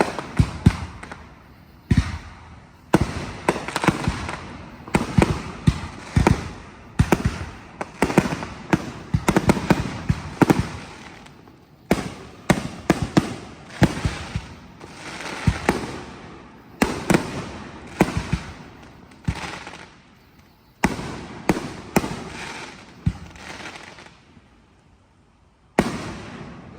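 Fireworks display: aerial shells bursting in quick, irregular succession, each bang trailing off in an echo. The bangs thin out near the end before one last burst.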